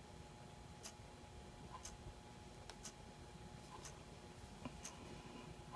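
Near silence with faint, sharp ticks coming about once a second.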